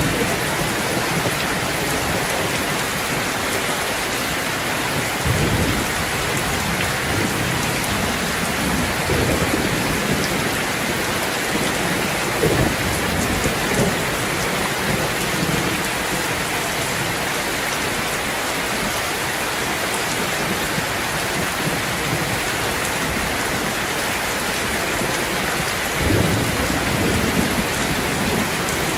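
Steady rain falling, with several brief low rumbles; the strongest comes near the end.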